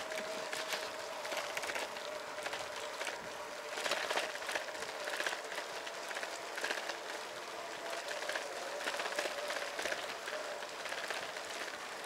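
Steady rushing hiss of a bicycle on the move, tyres running on the road, with frequent light rattles.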